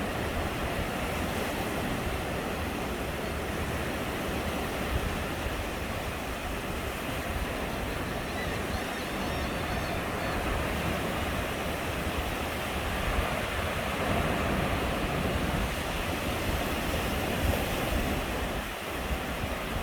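Steady rushing noise with an even level throughout.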